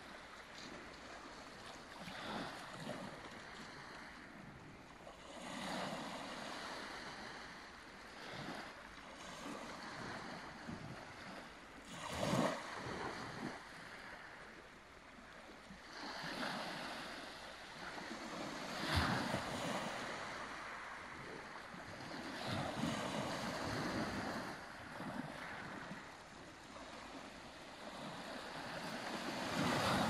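Small sea waves lapping and washing onto a pebble beach and around rocks, swelling and ebbing every few seconds, with two stronger surges about twelve and nineteen seconds in.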